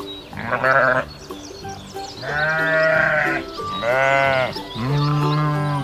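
Sheep bleating four times over light background music: a short, wavering bleat, then three long bleats.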